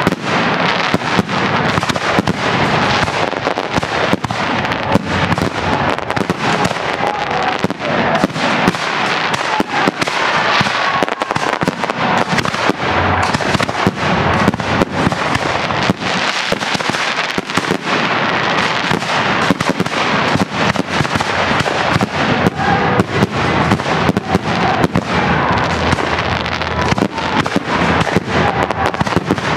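Aerial fireworks display: shell bursts going off in a dense, unbroken barrage of overlapping bangs and crackles, many a second.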